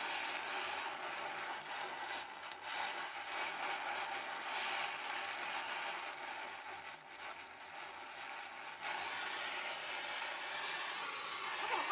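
Oxy-fuel gas-welding torch flame hissing steadily while a radiator heating-pipe joint is welded with filler rod. The hiss eases off a little and comes back up sharply about nine seconds in.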